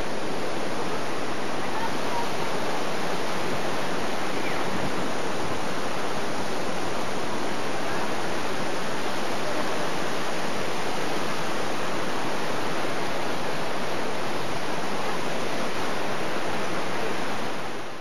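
Fast-flowing river water rushing steadily over rocks, a continuous even roar of water that fades out near the end.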